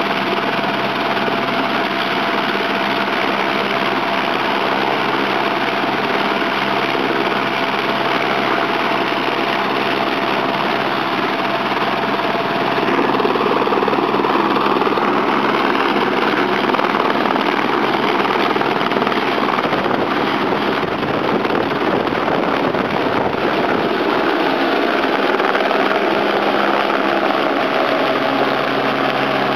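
Eurocopter AS350 B2 helicopter's single turboshaft engine and main rotor running, a steady turbine whine over rotor noise. It gets louder about halfway through as power comes up for take-off.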